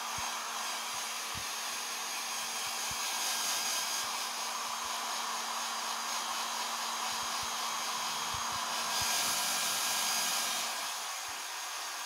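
Hair dryer running steadily, rushing air over a constant motor hum. It turns louder and hissier for a couple of seconds near the end, then eases back.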